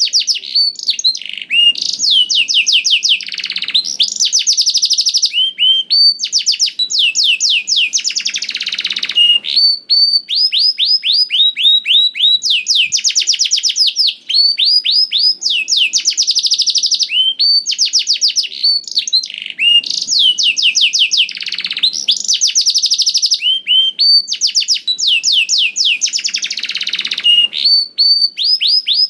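Domestic canary singing continuously: long, fast trills of repeated sweeping notes, broken by short whistled notes between phrases.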